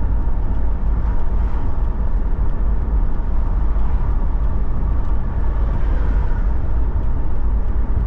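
Steady road and engine noise inside a car cruising at highway speed: a constant deep rumble with tyre hiss.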